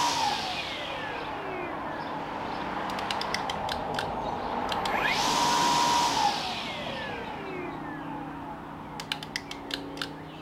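Toro 60V Flex-Force battery string trimmer run on the trigger: its whine falls away as it coasts down, rises again about five seconds in, holds for about a second, then falls once more. Extremely quiet; most of what is heard is the line whipping the air rather than the motor.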